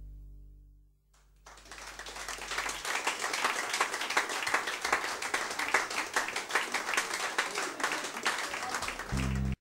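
The last chord of a guitar song fades out. After a second's pause, audience applause starts, swells and carries on as dense clapping, then cuts off abruptly near the end.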